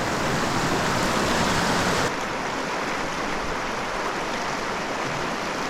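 Small creek's water running over rocks, a steady rushing that drops slightly in level about two seconds in.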